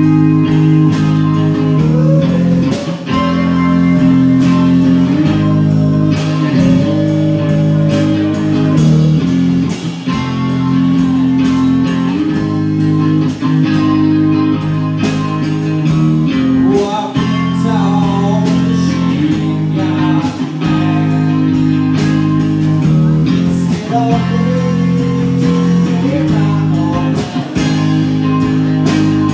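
Live rock band playing: electric guitar, bass guitar and drums, with a singer on vocals over the held guitar chords.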